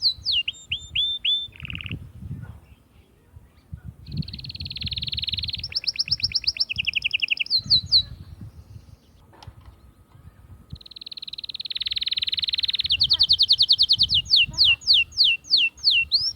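Canary singing: fast, buzzy trills held around 4 kHz alternate with runs of quickly repeated notes that each sweep downward. The song comes in two bouts with a pause of about two seconds in the middle. A faint low rumble runs underneath.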